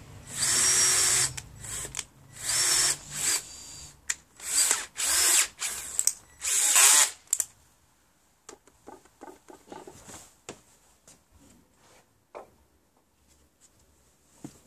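Handheld power drill run in a string of short bursts, about eight in the first seven seconds with the longest near the end of them. After that, only light knocks and handling clicks.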